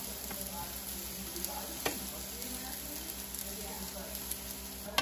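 Rice and diced meat sizzling in a stainless steel skillet as they are stirred with a wooden spoon, with a single sharp tap about two seconds in.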